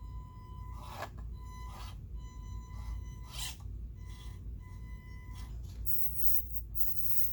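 Axial SCX24 micro RC crawler's small electric motor whining in short stop-and-go pulses as it crawls a rock line, with brief rasps of the tires and chassis scraping on rock between pulses.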